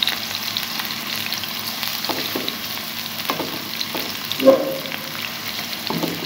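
Chopped onions sizzling in hot oil in a metal karahi, stirred with a plastic slotted spatula that scrapes against the pan every second or so. One louder knock of the spatula on the pan about four and a half seconds in.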